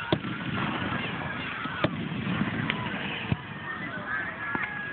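Aerial fireworks shells bursting: several sharp bangs, roughly one every second or so, over a steady background hubbub with honk-like calls.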